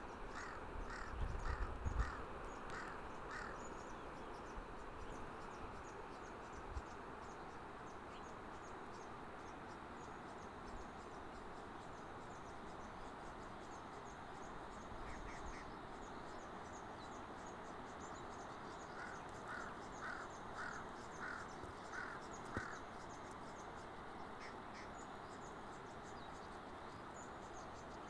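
A bird gives two runs of six or seven calls about half a second apart, one at the start and one about two-thirds of the way in, over steady insect chirring and an even background hiss.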